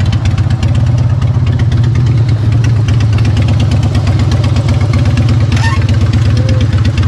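Harley-Davidson V-twin motorcycle engine running loudly and steadily at idle with a rapid, even firing beat as the bike rolls up and stops.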